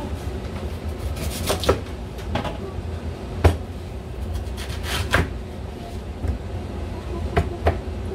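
Chef's knife cutting a Korean radish on a wooden cutting board: irregular sharp knocks of the blade striking the board, a few every couple of seconds, over a steady low hum.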